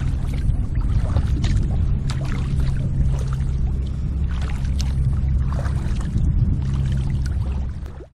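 Sea kayak paddling: water splashing and trickling from the paddle strokes and lapping at the hull, over a steady low rumble. The sound cuts off abruptly at the end.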